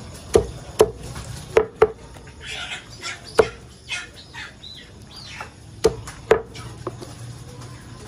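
Heavy cleaver chopping raw chicken on a thick round wooden chopping block: about seven sharp thuds at uneven intervals, some in quick pairs.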